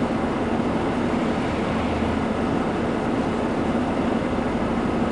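City bus engine idling while the bus stands still, heard inside the passenger cabin: a steady, even hum with a constant low drone.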